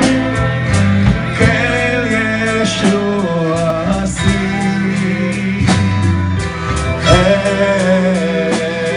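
Live band playing a song: a male singer over electric and acoustic guitars and a drum kit keeping a steady beat.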